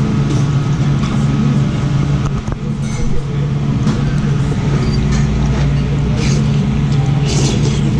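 Noodles being eaten, with short slurps, the strongest near the end, over a steady low hum.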